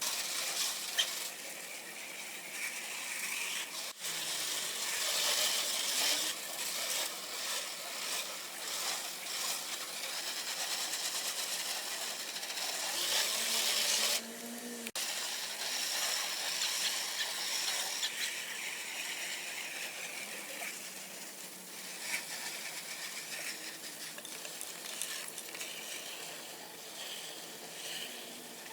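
Garden hose with a hose-end sprayer hissing as it sprays a pool-shock chlorine and dish-soap solution onto house siding, with brief breaks about 4 and 15 seconds in.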